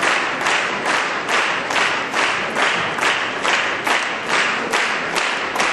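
Theatre audience applauding in unison, clapping together in a steady rhythm of nearly three claps a second.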